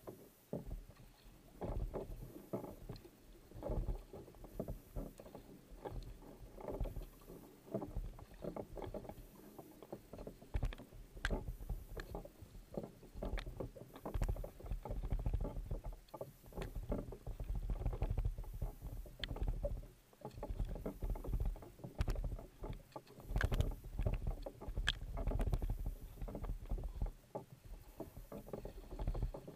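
Racing kayak paddle strokes: the blades dipping and pulling through the water in a steady rhythm, with splashes and drips and water running along the hull. A low rumble of water and wind sits on a camera mounted on the boat.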